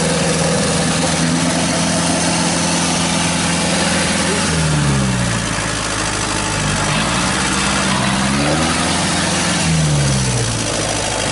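Engine running steadily; its speed falls and picks up again twice.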